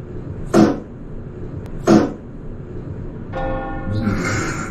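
Fake fart sound effect, two loud, short blasts about a second and a half apart, played as a prank.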